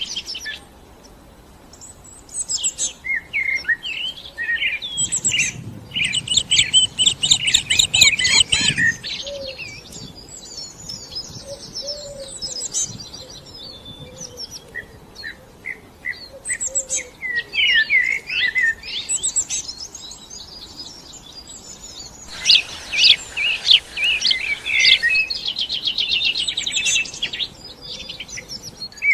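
Songbirds chirping and singing, a mix of short high chirps and quick trills, with the busiest stretches a few seconds in and again near the end.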